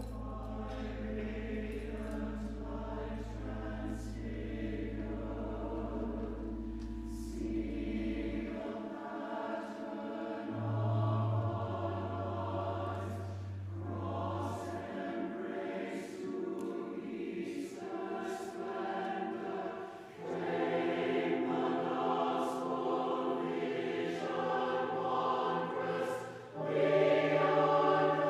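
Church choir singing an anthem over long, held low accompaniment notes, swelling louder near the end.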